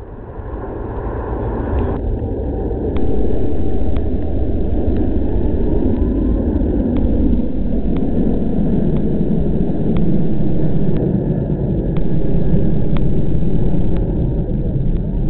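Airbus A380's four jet engines heard as the airliner flies a low, slow pass: a deep rumble that swells over the first few seconds, then holds loud and steady, sinking lower in pitch as it goes by.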